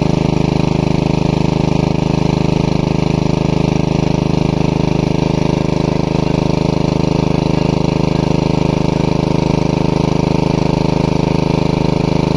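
Small engine driving a water pump, running steadily at an even speed with a fast, regular beat.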